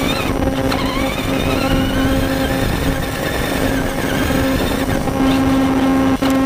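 Onboard sound of a radio-controlled truck driving across grass: a steady hum under a motor whine that rises in pitch over the first few seconds, over a rush of tyre and wind noise. There is a brief dropout in the sound near the end.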